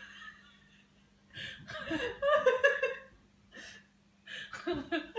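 A person laughing in two bursts, the second starting a little past the middle, while filming a cat at play.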